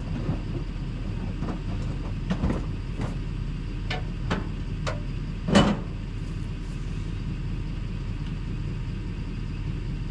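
A motor vehicle running steadily with a low rumble, with a string of sharp knocks and clunks in the first half; the loudest comes about five and a half seconds in.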